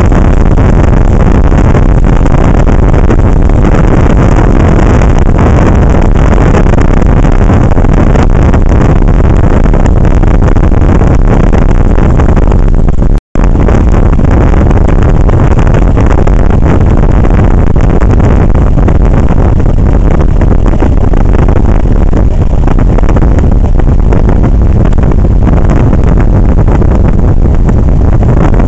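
Motorcycle riding on a gravel road, heard from the bike itself: a loud, steady rumble of engine, tyres and wind on the microphone. The sound cuts out for a split second about 13 seconds in.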